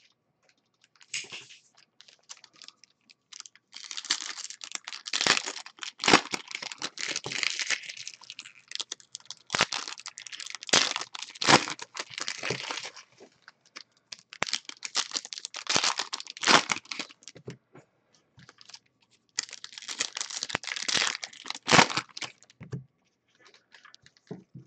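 Foil trading card pack wrappers crinkling and tearing as packs are opened, mixed with the clicks and slides of cards being handled and flicked through. It comes in several spells of crackle with short quiet gaps between them.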